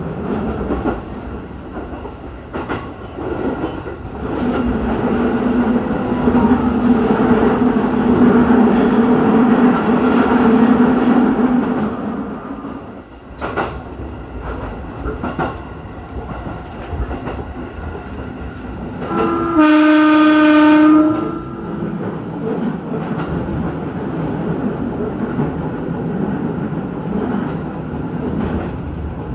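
Electric commuter train running along the track, with wheels clicking over rail joints now and then and a low steady hum for several seconds in the first half. About two-thirds of the way through, the train's horn sounds once, loud, for nearly two seconds.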